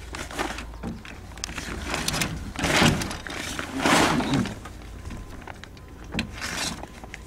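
Stiff sailcloth rustling and crinkling as a gathered sail is handled and its slides are fed onto the boom, in irregular swishes with small clicks; the two loudest swishes come about three and four seconds in.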